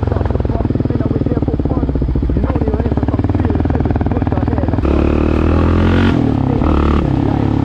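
Yamaha Raptor 700R ATV's single-cylinder four-stroke engine running while riding. About five seconds in it revs up louder for about two seconds, then drops back to a steady run.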